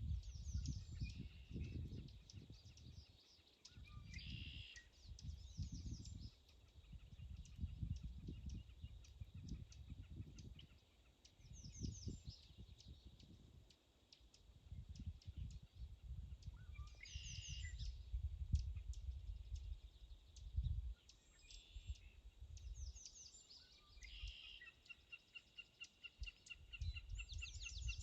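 Wild birds singing short, repeated trilling phrases every few seconds, over a low wind rumble on the microphone. Near the end a rapid, evenly pulsed call begins.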